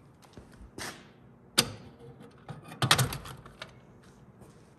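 Metal clacks and clinks as a rack of T-handle Allen wrenches, on a welded steel angle-iron bracket, is hung on the side of a steel toolbox. One sharp knock comes about a second and a half in, and a short burst of clatter follows about three seconds in.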